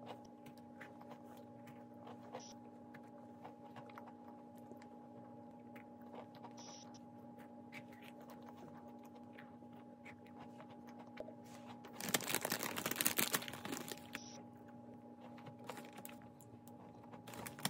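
Crumbly cookie being bitten and chewed close to the microphone, a scatter of small crisp crunches over a steady low hum. About twelve seconds in, a clear plastic cookie bag crinkles loudly for about two seconds.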